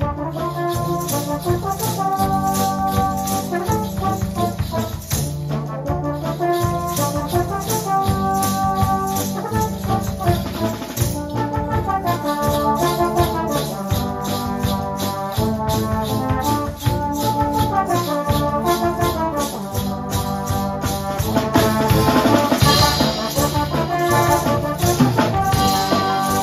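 Live brass band playing an upbeat piece, with timbrels (tambourines) struck and shaken by a dance group in time with the music, their jingles running through the band sound.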